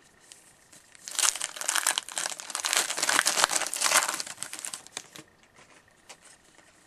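Wrapper of a 2013-14 O-Pee-Chee hockey card pack crinkling as it is handled and opened. The crinkling starts about a second in, runs for about four seconds and fades out.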